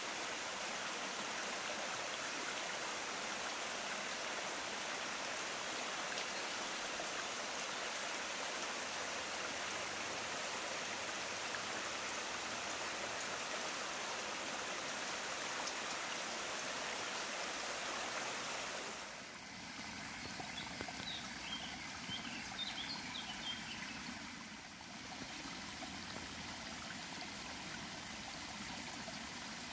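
Steady rush of water running through a beaver dam of piled sticks. About two-thirds of the way in, the sound drops to a quieter, thinner flow with a few faint high chirps.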